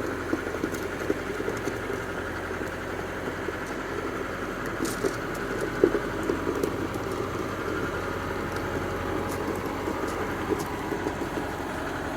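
Engine of the farm machinery moving a long pole, running steadily, with light rattles and clinks.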